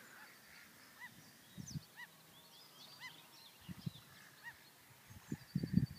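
Faint bird calls: four short honking calls spaced about a second apart, with smaller birds chirping higher up. Low rumbling bursts build near the end.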